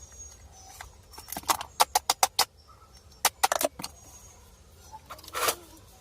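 Sharp metallic clinks and taps from tools and parts being handled: a quick run of clicks about one and a half seconds in, a few more past three seconds, and one more near the end.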